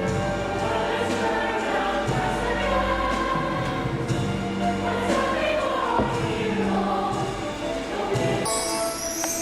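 Stage musical cast singing together as a choir with accompaniment, sustained held notes in several voices; a brighter, higher sound joins near the end.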